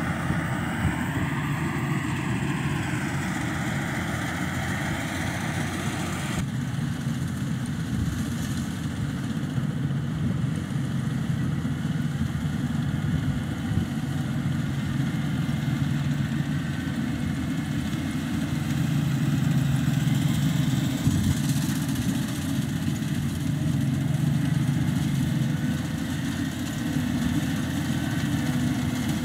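Engine of a rice harvesting machine running steadily with a low drone. A higher, wavering sound on top stops abruptly about six seconds in.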